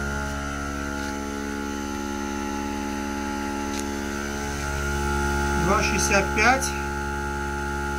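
Xiaomi 70mai portable car air compressor running steadily with a constant hum as it inflates a collapsible spare tyre, the pressure nearing 2.7 bar. About six seconds in there is a brief cluster of quick rising chirps.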